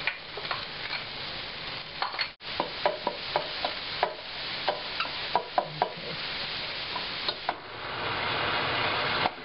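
Diced onion and garlic sizzling in bacon fat in a stainless steel pot, with a spatula scraping and tapping the pan as it stirs. Near the end the sizzle grows louder and denser as chunks of raw meat go into the hot fat.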